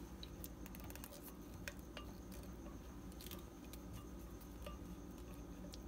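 Faint scraping of a silicone spatula inside a glass blender jar, with scattered light clicks and taps of the spatula against the glass.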